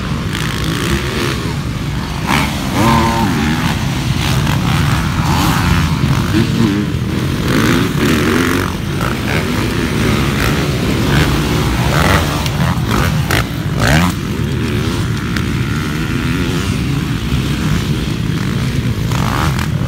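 A pack of motocross dirt bikes racing past, several engines revving up and down together over a steady rumble.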